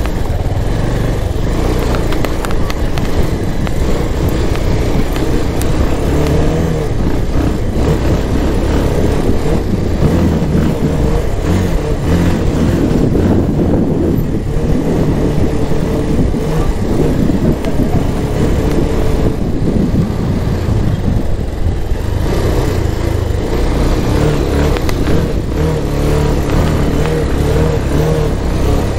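Motorcycle engine running steadily on the road, its note shifting up and down a little at times over a heavy low rumble.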